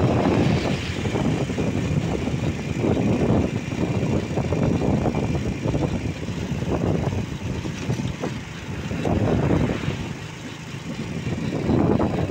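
Engine and road noise of a moving vehicle, heard from on board, rising and falling in level and dipping about ten seconds in.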